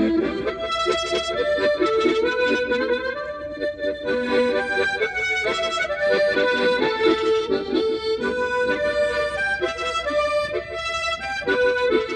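Harmonica played solo: a fast, lively melody of quick, repeated notes with chords under it.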